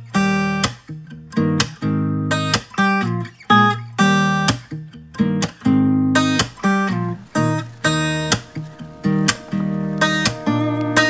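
Background music: acoustic guitar strumming chords at a steady pace, about two strums a second.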